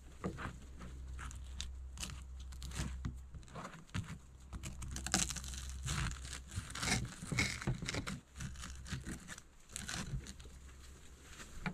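Knife spreading jam on a slice of toast, scraping across the crust in a run of short, irregular scratchy strokes.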